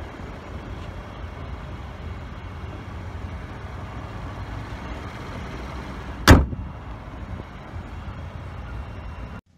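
A car hood, here a 2015 Buick LaCrosse's, slammed shut once with a single loud bang about six seconds in, over a steady low rumble.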